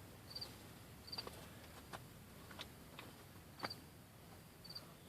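Faint chirping of crickets, short chirps repeating about once a second, with a few light clicks in between.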